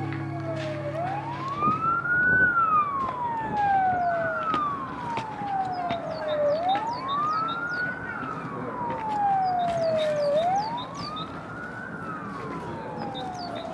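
Emergency vehicle siren wailing. Its pitch rises quickly and falls slowly, repeating about every four seconds.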